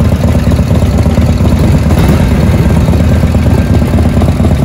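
Vintage Harley-Davidson V-twin chopper engine idling, a loud, steady low rumble.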